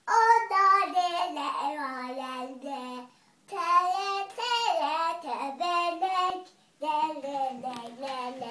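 A young girl singing solo without accompaniment, in three phrases with short pauses for breath between them.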